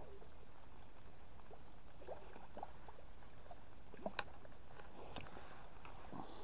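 Faint splashing and rustling as a landing net is pushed through bankside reeds into the river, with scattered sharp clicks, the sharpest about four seconds in, over a steady low rumble.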